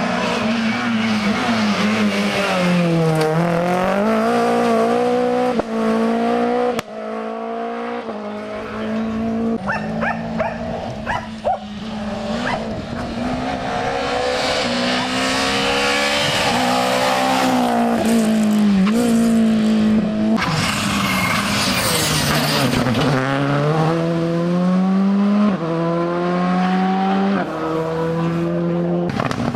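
Rally car engine accelerating hard up through the gears in stepped rises, then dropping in pitch as it brakes and downshifts, several times over. About two-thirds of the way in there is a short burst of rushing noise.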